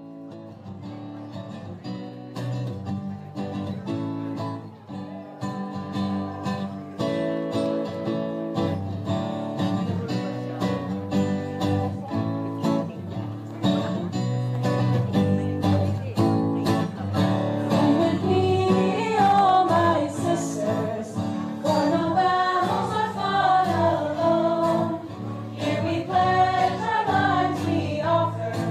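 Music: a hymn opening on strummed acoustic guitar, fading in and growing louder, with singing coming in about two-thirds of the way through.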